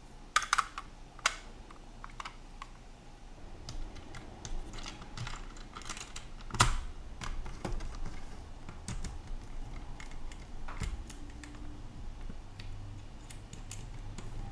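Plastic clicks and snaps of a power window switch's housing and parts being fitted back together by hand, with a cluster of sharp clicks about half a second in, another just after a second, a loud snap about halfway, and light tapping and ticking in between.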